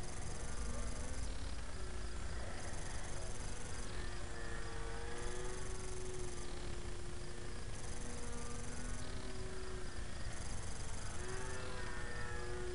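Electric motor and propeller of a small foam RC airplane buzzing in flight, the pitch of its whine stepping up and down every second or two.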